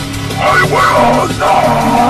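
Heavy rock song: the band plays a steady backing, and a loud sung vocal comes in about half a second in.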